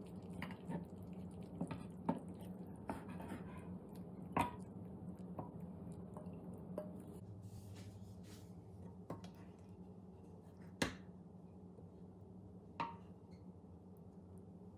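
Wooden spoon knocking and scraping against a nonstick electric skillet and a ceramic bowl as cooked chicken pieces are scooped out of their sauce: scattered light clicks, with a few sharper knocks, the loudest near the middle and later on. A low steady hum underneath.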